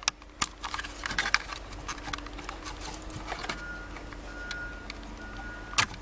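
Plastic wiring connectors being worked loose and unplugged from a headlight switch: scattered small clicks and rattles, with one sharp click near the end.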